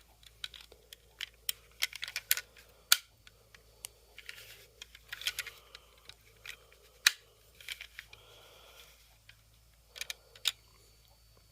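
Scattered sharp clicks and taps of a diecast model car being handled as its doors are opened, with faint rustling in between.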